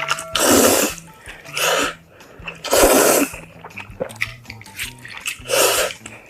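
Slurping instant noodles close to the microphone: four loud, hissy slurps of about half a second each, over quiet background music.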